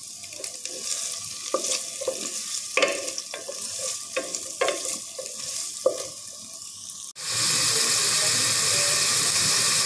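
Diced chicken frying in a nonstick pot: a light sizzle broken by short scraping knocks of a wooden spatula stirring against the pan. About seven seconds in it cuts to a louder, steady sizzle of frozen mixed vegetables frying with the chicken.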